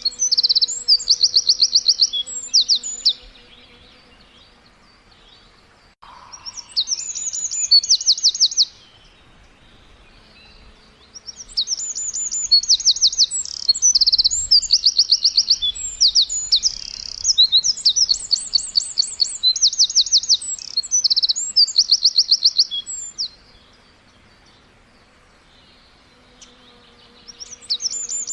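Small birds chirping in bouts of rapid, repeated high notes. The bouts come a few seconds apart: one at the start, a short one about six seconds in, a long one from about eleven to twenty-three seconds, and another near the end.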